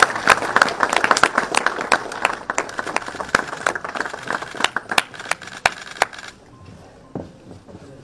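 A room full of people murmuring, over many sharp, irregular clicks. It all cuts off abruptly about six seconds in.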